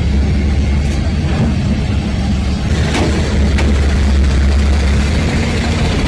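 Steady, unbroken low mechanical hum, like an engine running.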